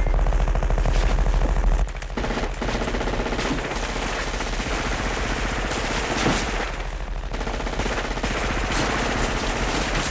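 Film soundtrack of sustained automatic machine-gun fire: a continuous rapid rattle of shots that drops a little in level about two seconds in and keeps going.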